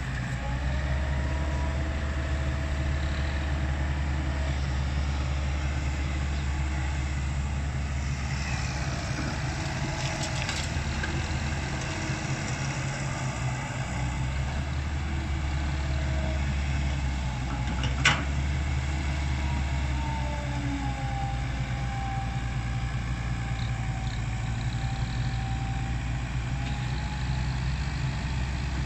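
Komatsu crawler excavator's diesel engine running steadily while digging, with a whine that glides slowly up and down in pitch. A single sharp knock comes about two-thirds of the way through.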